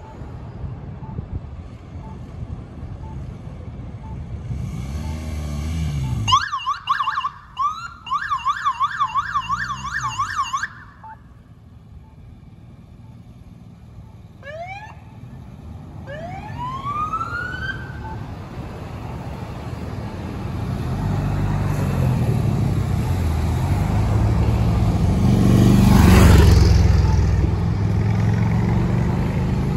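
Police vehicle sirens sounding in short bursts: a few rising whoops, then a rapid yelp lasting about four seconds, a pause, and a few more rising whoops. Then vehicle engines and tyres pass close, loudest shortly before the end.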